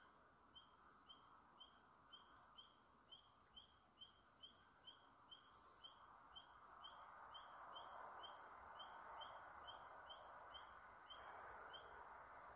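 Faint, steadily repeated short high chirps, about two a second, from a small forest animal or bird calling over and over, over a soft hiss that swells about halfway through.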